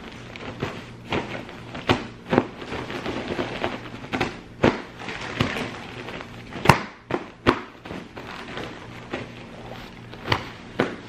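Irregular thumps and taps with light rustling as a pillow and its cover are handled, over a low steady hum.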